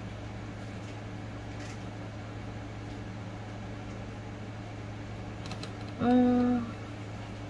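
Small plastic toy-stroller parts handled and fitted together by hand, giving a few faint clicks over a steady low hum. About six seconds in, a short hummed voice sound is heard, held on one pitch.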